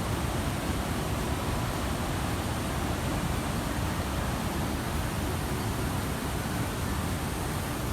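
Steady, even rush of waterfall cascades and rapids on the Tulijá river, with no let-up.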